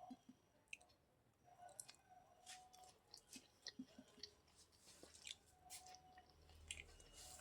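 A person chewing food close to the microphone: quiet, wet mouth sounds with scattered small clicks and smacks.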